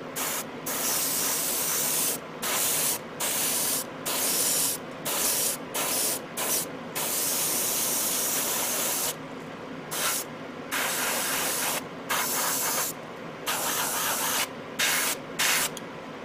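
Airbrush spraying paint onto masked model-kit parts in short bursts as the trigger is pulled and released about a dozen times, with one longer pass of about two seconds near the middle.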